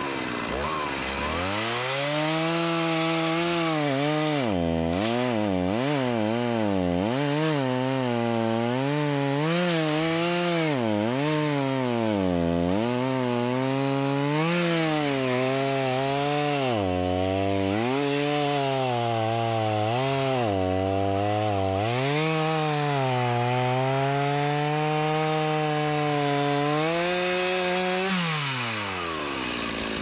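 Two-stroke chainsaw cutting wood. It throttles up about a second in, bogs down under load and recovers every second or two, then drops back to idle near the end.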